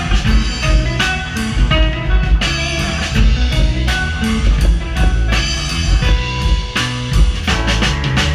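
Live band playing: drum kit keeping a steady beat under electric guitar and keyboards.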